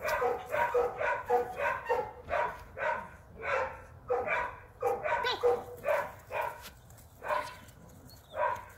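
A dog barking in a rapid string, about two to three barks a second, thinning out to single barks near the end.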